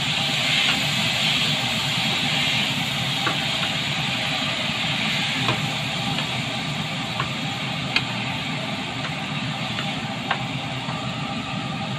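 Rice, Chinese sausage and mushrooms frying in a non-stick pan, a steady sizzle, stirred with a wooden spatula that knocks against the pan several times.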